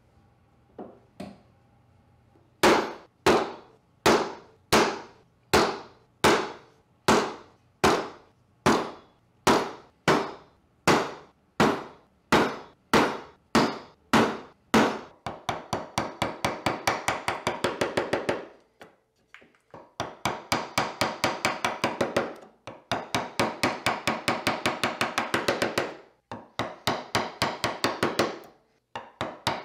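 A hammer striking a steel punch and then a gouge set into a wooden strip on a workbench: loud, even blows about two a second for some twelve seconds, then quicker, lighter taps about five a second in runs with short pauses.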